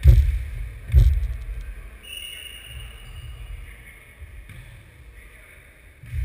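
Futnet ball striking the hardwood floor and a player's foot. There are heavy thumps at the start and about a second in, each dying away in the hall's echo, and another near the end. A brief high squeak comes around two seconds in.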